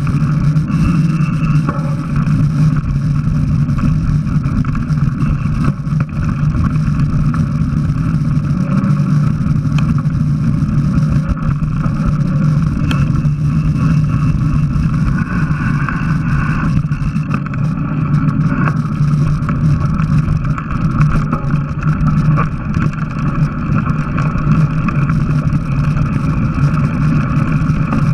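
Steady, loud rumble of wind and trail noise on an action camera riding along on a mountain bike: air rushing over the microphone together with the tyres rolling over dirt and grass.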